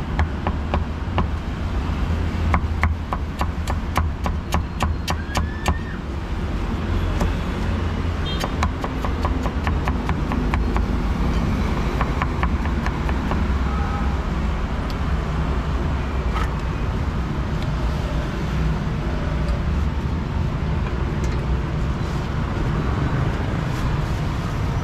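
A cleaver chopping meat on a wooden block in rapid, even strokes for about the first six seconds, then stopping, over steady street-traffic rumble.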